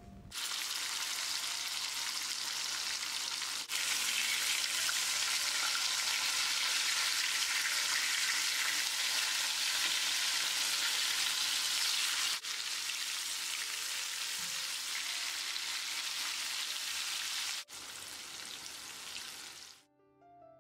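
Masala-coated kingfish steaks and curry leaves shallow-frying in hot oil in a pan: a steady sizzle as the steaks are turned to fry their second side. The sizzle steps louder and quieter a few times and stops just before the end.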